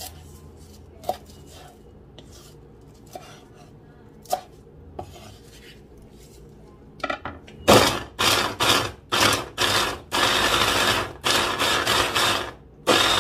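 Electric mini food chopper pulsed in about ten short bursts, starting about eight seconds in, one held for about a second, its blades mincing onion, carrot, garlic and parsley. A few faint clicks come before it.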